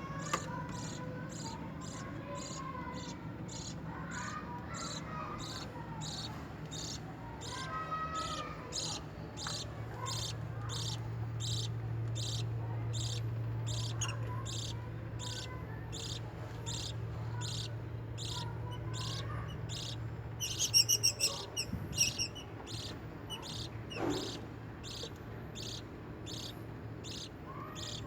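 Fischer's lovebird chick cheeping, short high calls repeated in a steady rhythm of about two a second, with a louder run of squeaky calls about two-thirds of the way in. A steady low hum lies underneath.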